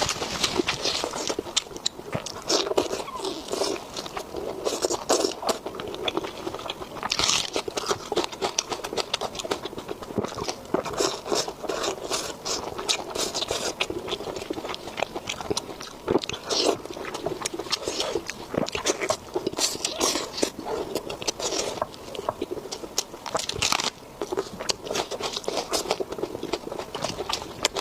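A person chewing and biting into food, with repeated crunchy bites coming every second or two among steady chewing.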